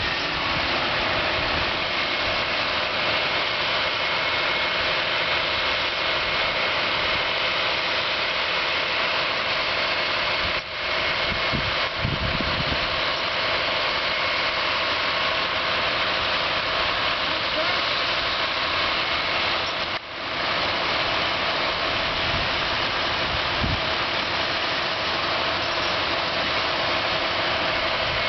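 A vehicle engine idling steadily with a constant hum, dipping briefly twice.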